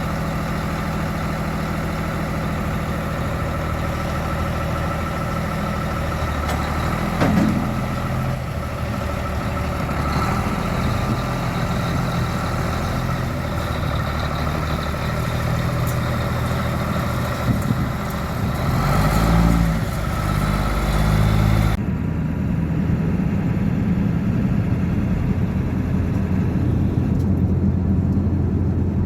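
A vehicle engine running steadily, with a few brief knocks; the hiss above the engine hum drops off abruptly about two-thirds of the way through.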